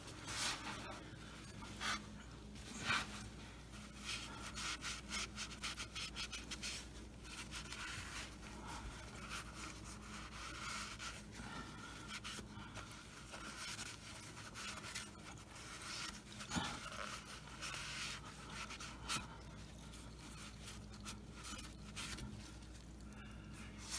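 A rag wiped and rubbed around the oil drain hole of a BMW R1200RT's engine sump by a gloved hand, giving a run of short, irregular rubbing and scuffing sounds.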